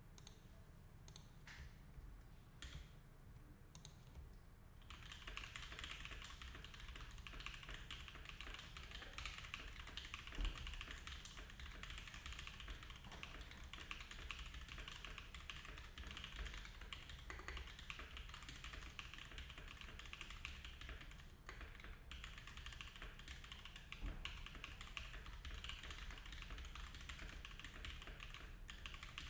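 Typing on an Iron165 R2 custom mechanical keyboard with lubed and filmed SOTC switches in an aluminium plate, no foam, and GMK keycaps. A few separate keystrokes, then steady fast typing from about five seconds in.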